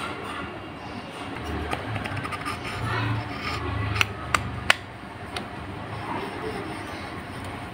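Small metal clicks and taps as the parts of an electric fan motor, the rotor shaft and the stamped-steel end bracket, are handled and pressed together onto the stator; two sharp clicks come close together just past the middle.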